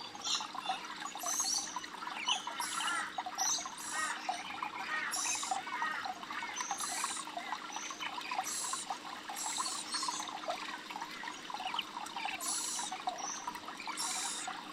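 A flock of rainbow lorikeets chattering continuously, with shrill screeches recurring every second or so.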